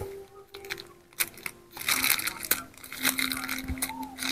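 Crinkling plastic packaging and small clicks as a cable is handled and drawn out of its bag, in irregular bursts that get busier about halfway through.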